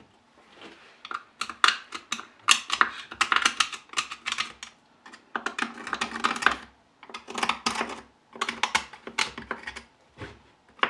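Rapid small clicks and taps of hand tools working on a concrete vibrator's housing, in three clusters of a second or more each with short pauses between.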